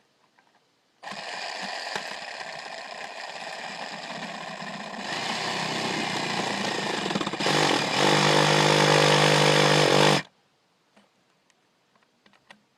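Handheld power tool running and cutting into wood for about nine seconds, getting louder in steps, then cutting off suddenly.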